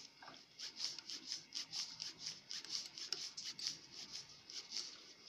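Key turning the adjusting screw of a boring head, sliding its body out toward full offset: a faint, repeated rasping of metal on metal, about three or four strokes a second.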